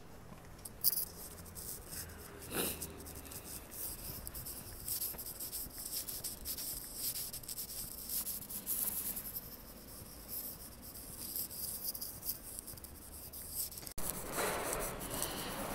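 Faint scratchy rustling and small clicks of a handheld phone microphone being rubbed and jostled while walking, over quiet street ambience. Near the end the sound changes to the fuller ambience of a covered market hall.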